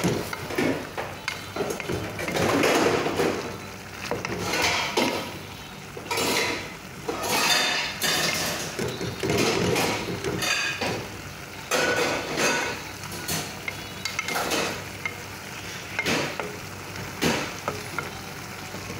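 A wooden spatula stirring and scraping bitter melon and egg in a stainless steel pan, in irregular strokes, with the food sizzling underneath.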